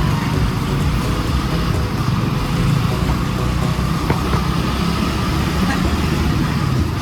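Steady vehicle and road noise: a loud, continuous low rumble.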